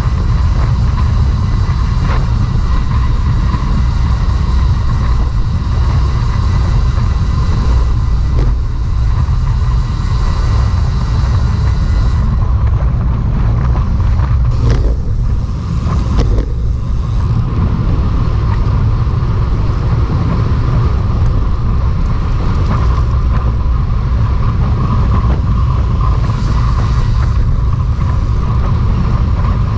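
Wind buffeting the microphone of a camera carried on a moving bicycle: a loud, steady low rumble with a thin hiss above it.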